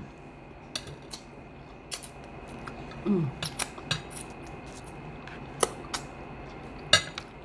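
Close-up mouth sounds of eating stew chicken: chewing and lip smacking heard as scattered sharp wet clicks, with a brief falling hum from the eater about three seconds in.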